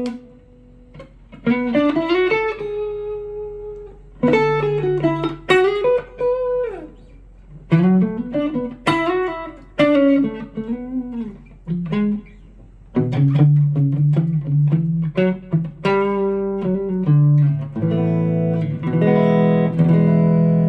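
Electric guitar played through a BOSS GT-1 multi-effects processor preset: short single-note phrases with string bends, separated by brief pauses, ending on a held, ringing chord.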